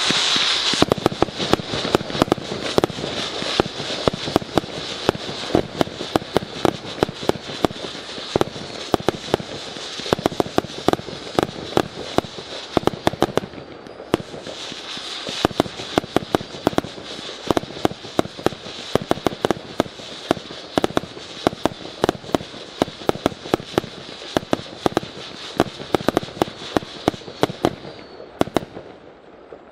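A 100-shot, 21 mm firework cake firing in rapid succession, with many sharp shots and bursts and a steady high whistling from the shells' whistle effects. There is a brief lull about halfway through, and the barrage stops shortly before the end.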